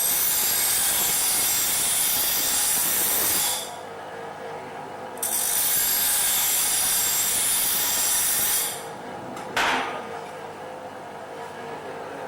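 Stanley STGB3715 bench grinder running with a steady motor hum while a workpiece is pressed against its 152 mm wheel twice, each time a loud grinding hiss lasting about three and a half seconds. A short sharp knock follows near the end.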